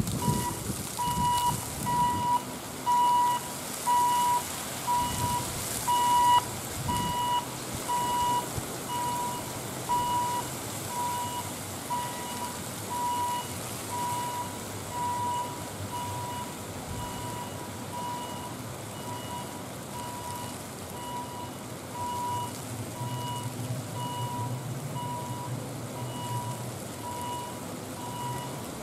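Warning beeper of a lift bridge over a canal lock, sounding short, evenly spaced beeps a bit faster than once a second while the bridge leaf rises. Underneath are a steady rain hiss and a low hum that grows louder near the end.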